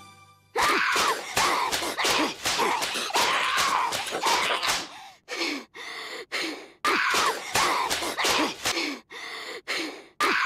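A voice making wordless groans and gasps, broken off again and again in short cries about every half second.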